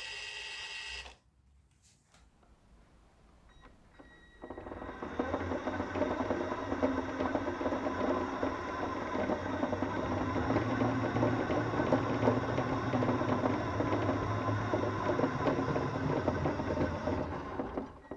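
Radio-controlled toy Mini Cooper S running: its small electric motor and gears start about four seconds in and run with a fast, even clatter for about thirteen seconds, then stop. A steady whine cuts off about a second in.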